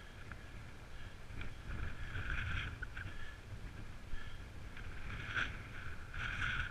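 Mountain bike rolling down a stony, grassy slope: tyres crunching and rattling over loose stones in irregular bursts, over a steady rumble of wind on the microphone.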